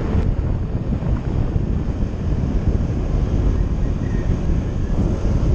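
Wind buffeting the microphone on a moving vehicle: a steady, heavy low rumble with road and traffic noise beneath it.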